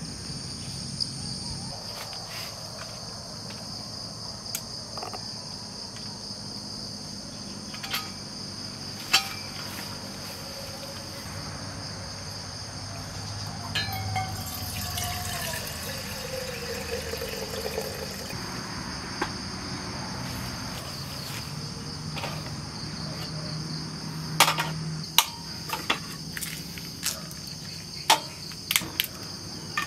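Crickets chirring steadily, with scattered sharp clicks and knocks that come thicker and louder near the end. About halfway through there is a short hiss with a falling tone.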